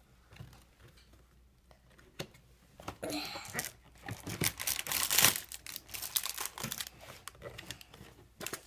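Cardboard advent calendar doors being pulled open and their contents handled, with crinkling and rustling that starts about three seconds in and is loudest around the middle.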